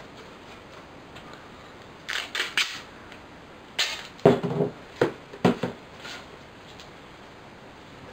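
Gaffer tape being pulled off the roll in a few quick rasping rips about two seconds in, then torn into a strip with a run of sharp snaps between about four and six seconds in.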